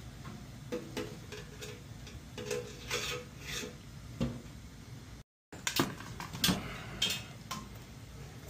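Handling noise: a run of sharp clicks and light metallic clinks, busier in the second half, with faint short tones about a second in and again around three seconds.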